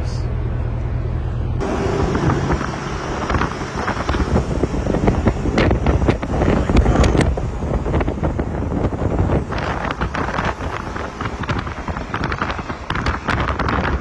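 Wind buffeting the microphone of a camera held out of a moving vehicle's window, a gusting rush with crackling spikes over the low road rumble. The first second and a half is a steadier low hum before the gusting starts.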